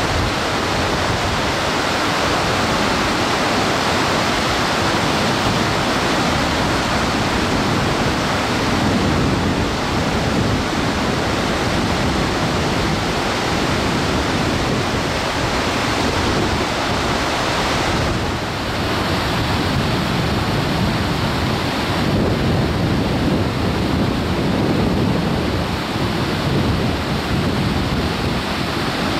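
Whitewater river rapids rushing and churning over rocks: a steady, loud rush of water with no break.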